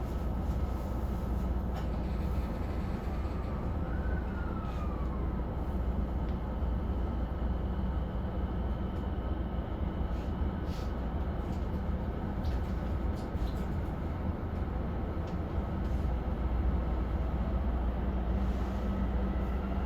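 Inside a JR E233-1000 series electric train pulling away and running: a low, steady rumble of the running gear with a faint whine from the traction motors, which glides up and back down in pitch about four seconds in.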